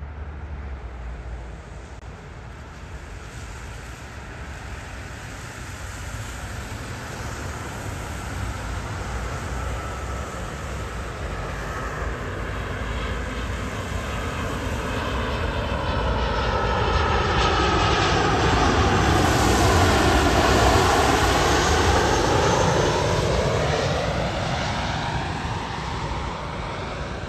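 Boeing 737-700 jet airliner passing on approach to land, its turbofan engines swelling steadily to a loud peak about twenty seconds in and then easing off. A thin engine whine can be heard during the approach, and the rush of noise sweeps in pitch as the aircraft goes by.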